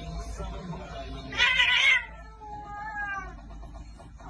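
A domestic cat squaring up defensively: a loud, sharp hiss about a second and a half in, then a short falling yowl.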